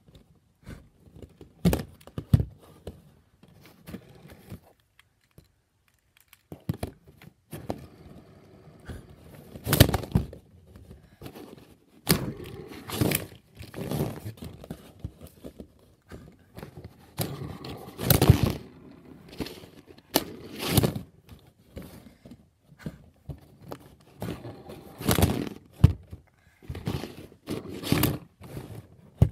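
K'Nex plastic robots pushed by hand across cardboard and knocked together: repeated plastic clacks, thuds and scraping, with several louder bangs as the bots collide.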